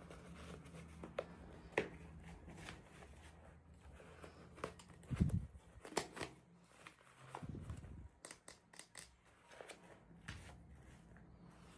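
Hands handling and opening toy packaging. Scattered small clicks, taps and crinkles of plastic and paper, with two low thumps about halfway through.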